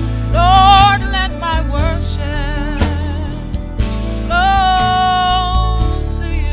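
A woman sings a slow gospel worship song into a handheld microphone over sustained instrumental accompaniment: a run of notes with vibrato about half a second in, then a long held note from about four seconds in.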